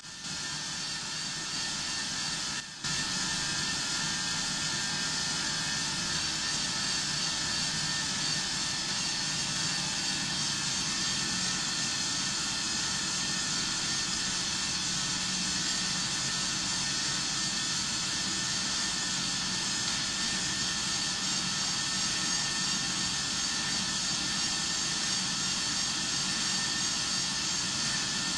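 Steady whirring rush of a stationary bicycle ergometer, its brake drum spun by the chain as the rider pedals hard, with a brief dropout near the start.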